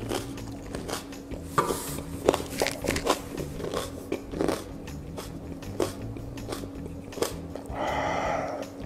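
Close-up chewing of raw onion, picked up by a lapel microphone: irregular crisp crunches and wet mouth clicks as the mouthful is bitten and chewed. Near the end comes a short, louder breath out through the open mouth.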